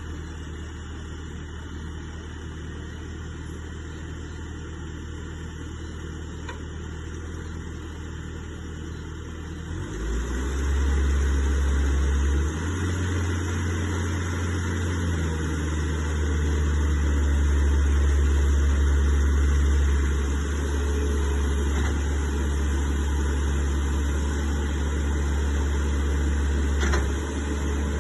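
Bobcat S590 skid steer's diesel engine running at idle, then throttled up about ten seconds in and running steadily at higher speed.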